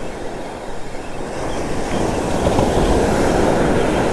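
Spinning reel cranked close to the microphone, a rattling, churning mechanical sound as line is wound in against a hooked fish. It grows louder about halfway through.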